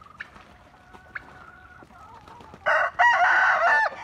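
A rooster crowing once, loudly, from a little before three seconds in, lasting just over a second with a short break near its start. Softer hen clucking comes before it.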